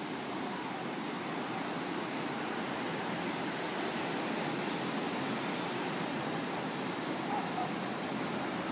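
Steady wash of ocean surf breaking on a beach, an even hiss with no engine note.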